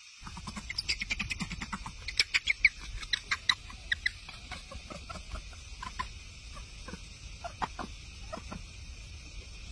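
Young macaque squealing: a quick run of short, high squeaks, several a second and loudest over the first few seconds, then thinning out to scattered single squeaks.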